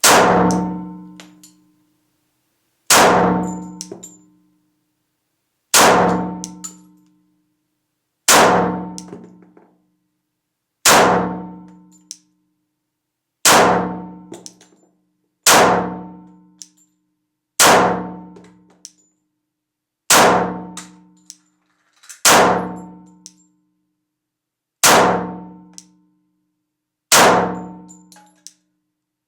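.45 ACP Glock 36 pistol firing twelve single shots in slow, even succession, about one every two and a half seconds, each shot followed by a ringing echo. It runs through a 13-round Glock 21 magazine without a stoppage.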